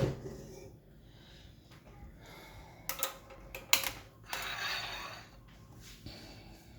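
Kitchen utensils clicking and knocking against a cooking pot a few times, with a short rush of noise about four seconds in, as leek and garlic go in to sauté in butter.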